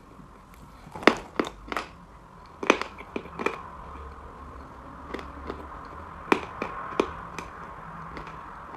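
Edible chalk being bitten and chewed close to the microphone: a run of sharp crunches, the loudest about a second in and again near three seconds, with a few more later on.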